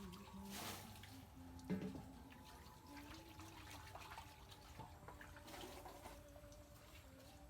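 Faint splashing and trickling water, as in washing food in a basin, with small clicks and one sharper knock a little under two seconds in.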